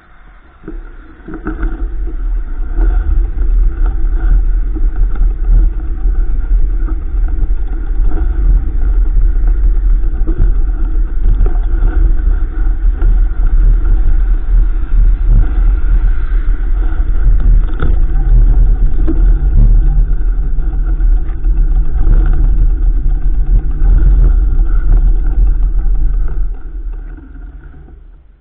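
Loud, steady wind rumble on the microphone with scattered knocks and rattles, as from a mountain bike camera moving fast over a rough trail. It builds up about a second in and dies away near the end.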